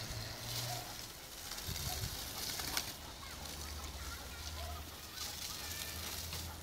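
Water from a garden hose jet spraying and splattering onto grass, a hiss that swells and fades several times as the stream is swung about.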